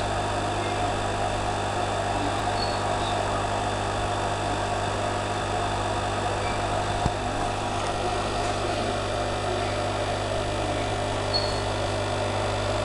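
Steady low electrical hum with a constant whir from running aquarium equipment. A few faint, short high chirps come through, and there is a single soft tick about seven seconds in.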